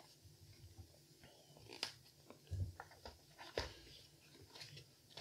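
Small cardboard box being opened by hand: quiet scrapes and clicks as the taped end flap is worked open and the inner tray slid out, with three louder knocks in the middle.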